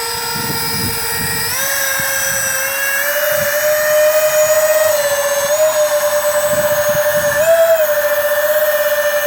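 Electric ducted-fan jets of a model Airbus A330 RC airliner whining at taxi power. The pitch steps up about a second and a half in as the throttle is opened to taxi uphill, then wavers, with a brief rise and fall near the end.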